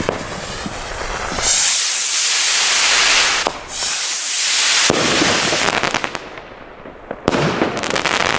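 Two Digistar fireworks rockets launching with a loud rushing hiss as their motors burn. They then burst overhead with a sharp bang about five seconds in and another near the end, followed by crackling.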